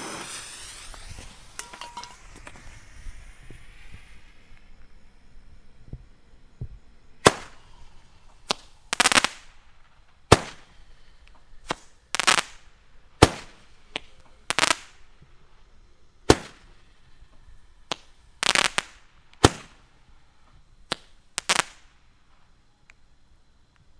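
Roman candle: a fuse hiss fading out over the first few seconds, then a run of sharp pops and short crackling bursts at irregular intervals over about fifteen seconds as the tube fires its shots.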